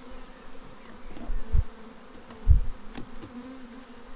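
Honeybees buzzing around an open hive, a steady drone. A few short low thumps, loudest about two and a half seconds in, and a sharp click about three seconds in.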